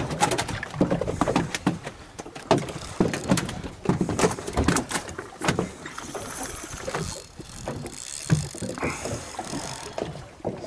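Choppy sea water slapping and splashing against the hull of a small drifting boat, in irregular knocks and slaps, thicker in the first half.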